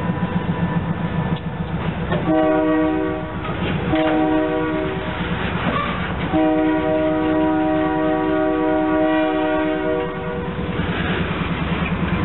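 Diesel freight locomotive horn sounded three times: two short blasts, then one long blast of about four seconds. Beneath it is the steady throbbing rumble of the idling and working diesel locomotives as the train creeps along.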